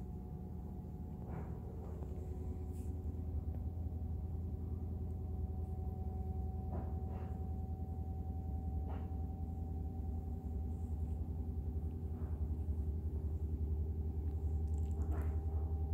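A steady low hum with a faint steady whine above it, and a few brief soft rustles of a puppy moving on a bed comforter.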